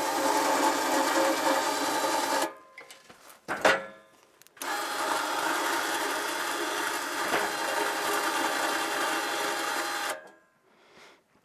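Radio-controlled electric winch on an ATV bale trailer running and winding in its line, a steady motor-and-gear whine. It runs for about two and a half seconds, gives a short burst, then runs again for about five seconds and stops abruptly.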